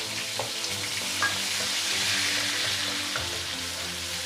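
Onion and garlic paste sizzling as it fries in hot oil in a kadai, stirred with a wooden spoon, with a couple of light ticks in the first second or so.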